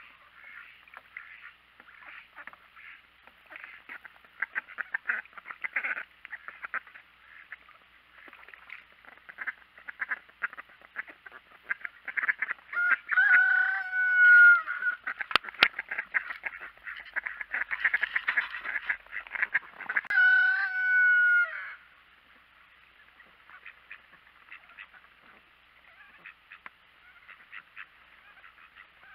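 Ducks dabbling their bills in a water tub, a quick, busy run of small wet clicks and splashes. Over it a duck gives two long loud calls of about two seconds each, the first about halfway through and the second some seven seconds later, each dipping slightly in pitch at the end.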